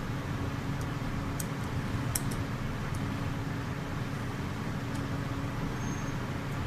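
Steady low background hum, with a few faint light clicks from small plastic and metal gearbox parts being handled, mostly in the first half.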